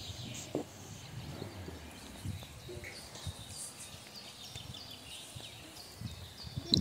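Birds chirping in short, faint calls, with a few soft low knocks now and then.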